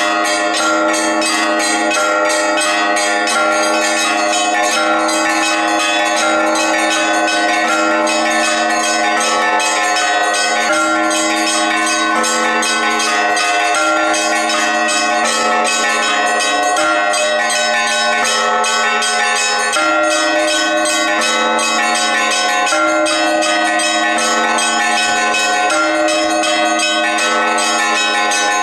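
Orthodox monastery church bells ringing a peal. Several bells are struck in quick succession without a pause, their tones overlapping in a dense, continuous ringing.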